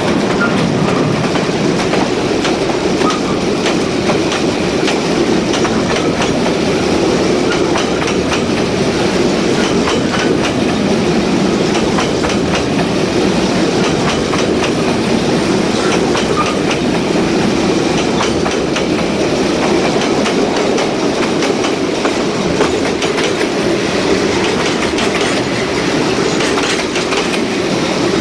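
A train rolling steadily along the track, its wheels clicking over the rail joints in a continuous clickety-clack with a rumbling undertone.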